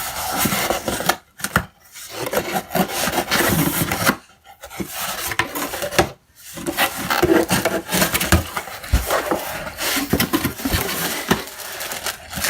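Cardboard box and packing being handled, scraped and rubbed while a computer power supply is unpacked: irregular rustling and scraping with a few brief pauses.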